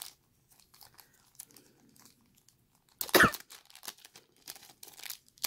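Crinkling of a thin clear plastic bag being handled and opened to take out an embroidered patch, in scattered crackles, with one louder rustle about three seconds in.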